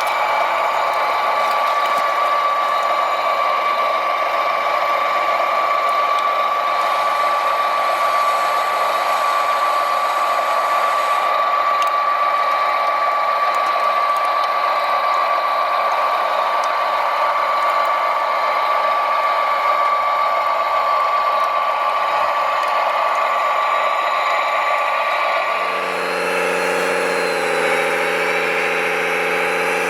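Steady high-pitched whine of a radio-controlled construction model's electric motors and gearing, running without a break. About 26 seconds in, it changes abruptly to a lower, evenly pitched engine-like drone.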